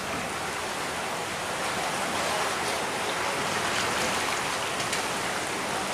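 Strong river current rushing and churning through an open sluice gate: a steady rush of water.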